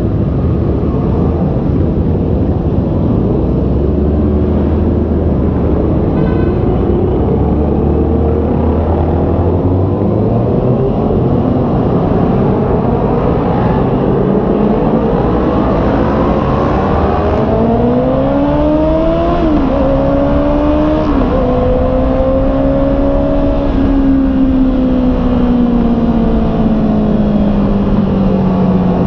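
Honda CB650R's inline-four engine running on the road over heavy wind rush. The engine note climbs from about halfway in, drops sharply twice within a couple of seconds, then slowly falls away as the bike eases off.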